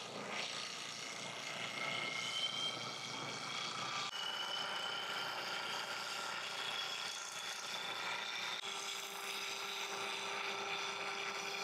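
Makita compact trim router running with a steady high whine, its bit cutting the square stock that the lathe spins down into a round 5/8-inch dowel as the router is slid along. The whine shifts slightly in pitch as the cut goes on.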